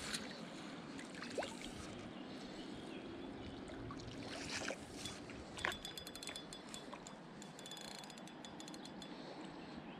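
A landing net dipped and moved through river water, splashing a few times, over the steady rush of the swollen river. A quick run of high ticks follows about halfway through.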